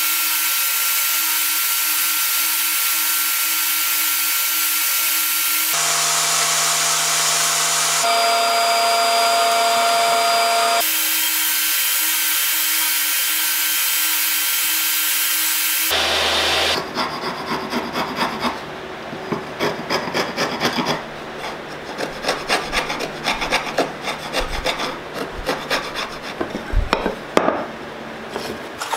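Table saw running steadily with a crosscut sled, its tone shifting abruptly a few times. About seventeen seconds in it gives way to light clicks and knocks of small cut mahogany pieces being handled and set against one another.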